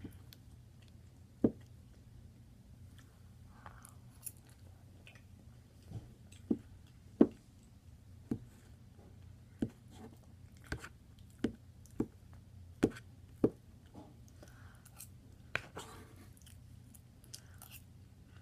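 Eating with a metal fork: about a dozen sharp clicks as the fork strikes food and plate, spread unevenly, with chewing between them.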